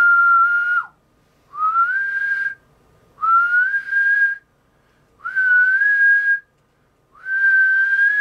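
A man whistling into a transmitter's microphone: five separate notes about a second each, every one sliding up briefly and then held on a steady pitch, with short gaps between. It is a whistle test tone to drive a single-sideband transmitter to its peak output.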